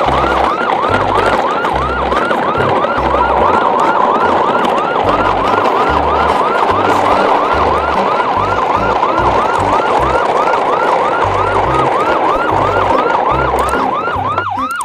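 A siren with a fast yelp, each note rising and falling about three to four times a second, over irregular low thumping.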